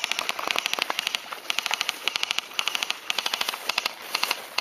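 Airsoft rifles firing full-auto in many short bursts, each a fast rattle of clicks at roughly twenty a second, with brief pauses between bursts.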